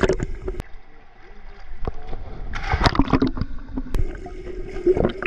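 Swimming-pool water heard with the camera under the surface: sloshing and bubbling, with a burst of splashing right at the start and another about two and a half seconds in, and a few sharp knocks between.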